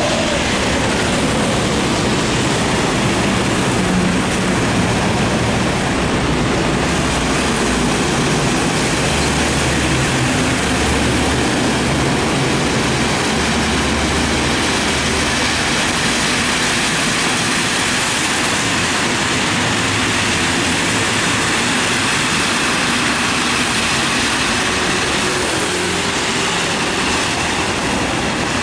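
Heavy diesel trucks driving past on a rain-soaked road: a steady hiss of tyres through water and falling rain, with a low engine rumble that swells and fades as each truck goes by.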